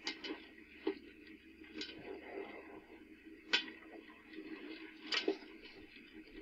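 Popcorn kernels popping inside a popcorn popper with a clear dome lid: about six sharp pops at irregular intervals, some ticking against the lid, over a faint steady hum.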